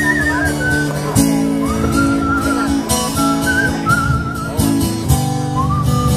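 Live acoustic guitar strumming steady chords, with a whistled melody carried over it in an instrumental break of a country ballad.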